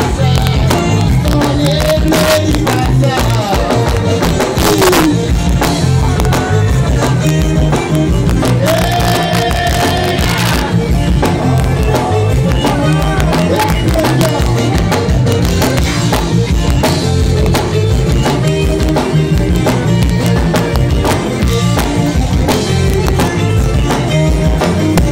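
Live zydeco band playing loudly with a steady beat: accordion carries the melody over drums and electric guitar, with a rubboard (frottoir) scraped in rhythm.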